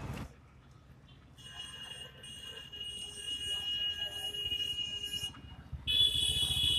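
A steady, high-pitched alarm-like tone sounds for about four seconds, stops, then comes back louder for about a second near the end.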